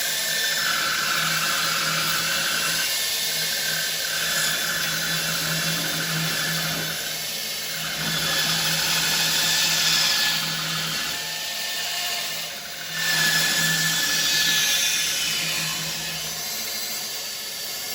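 Grizzly G0555 14-inch bandsaw with a 1 hp motor cutting through a thick, fairly dry ash blank: a steady motor hum under the rasp of the blade in the wood, swelling and easing as the feed changes, with a short dip about two-thirds of the way through.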